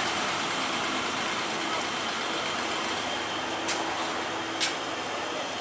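Steady hum of vehicle engines and road noise, with two sharp metallic clinks a little under a second apart near the end, the second louder, from recovery work at a wrecked bus and tow truck.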